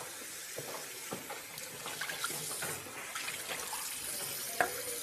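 Water running from a bathroom tap into a sink, with scattered small clicks and clinks of toiletries being handled on the vanity and a sharp knock about four and a half seconds in.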